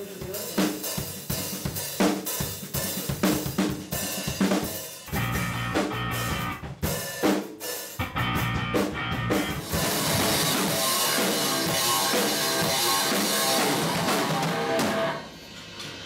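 Rock band playing in a rehearsal room: sharp drum-kit hits for the first few seconds, then the whole band playing loud and dense, stopping about a second before the end.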